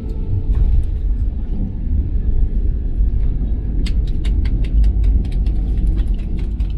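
Airbus A320 cabin on the ground at arrival: a heavy low rumble that jumps up about half a second in, joined from about four seconds in by a quick run of rattling clicks.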